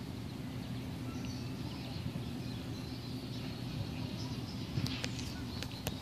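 Outdoor yard ambience with a steady low rumble and faint, scattered bird chirps. A few sharp clicks come near the end.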